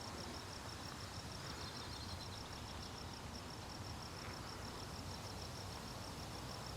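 A cricket-like insect chirping in a steady, rapid train of high pulses, about six or seven a second, over faint outdoor background noise.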